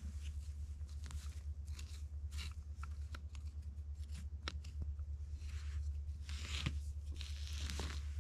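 A wooden stick scraping, prodding and raking through dry pine needles and forest soil, in irregular scratchy, crackling strokes, over a steady low hum.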